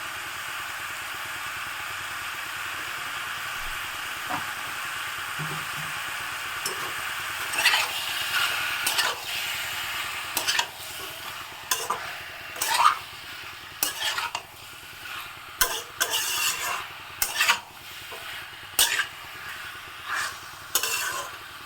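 Chicken pieces sizzling in spiced mustard oil in a pan. From about seven seconds in, a spatula stirs and scrapes against the pan in repeated strokes over the steady sizzle.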